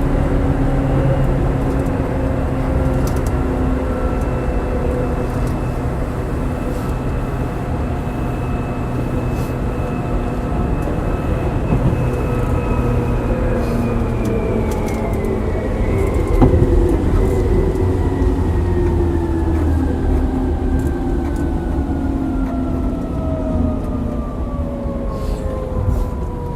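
Seibu 2000 series electric train running with a low rumble and several whining tones from the drive, a set known for an abnormal noise. The whine holds steady, then falls in pitch through the second half as the train slows, with one sharp knock about two-thirds of the way in.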